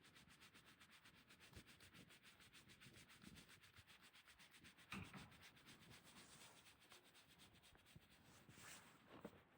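Faint, fast, even rubbing or scratching strokes, several a second, with one louder knock about halfway through.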